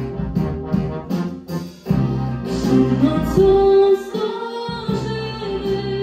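A female vocalist singing a Polish ballad with a concert wind band of clarinets, saxophones and brass accompanying her over a steady beat, with long held notes in the second half.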